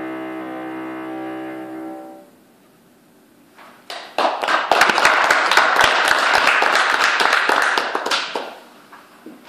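Double bass and grand piano holding the closing chord, which stops about two seconds in. After a short pause, audience applause, the loudest sound here, runs for about four seconds and fades near the end.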